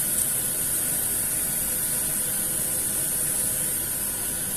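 A steady, high-pitched hiss with a faint hum underneath, unchanging throughout.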